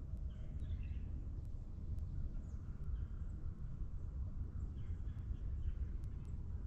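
Morning forest ambience: a few faint, short bird chirps, the clearest near the start and again after about five seconds, over a steady low rumble.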